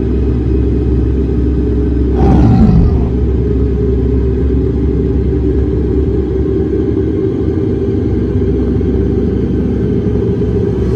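Deep, steady rumbling drone of film-opening sound design, with a downward-sweeping whoosh and hit a little after two seconds in.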